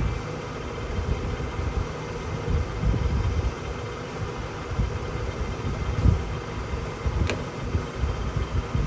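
Harrison M350 engine lathe running under power: a steady machine hum from the motor and headstock gearing with an uneven low rumble. A single sharp click sounds about seven seconds in.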